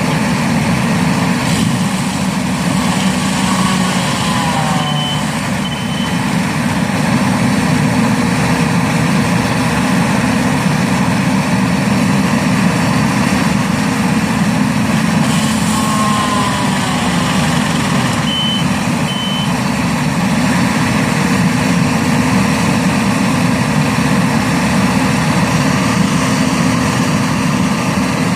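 Skid steer loader running steadily under load with a stump grinder attachment. A reverse alarm gives two short beeps about five seconds in and two more near eighteen seconds.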